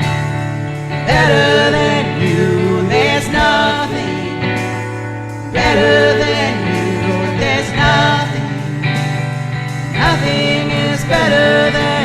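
Live worship band playing a contemporary worship song, with held low bass and keyboard notes under sung vocal lines that come and go.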